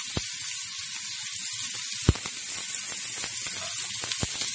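Chopped onions, green chilies and curry leaves sizzling steadily in hot coconut oil in a frying pan as a spoon stirs them. Three sharp clinks of the spoon against the pan come through, the loudest about two seconds in.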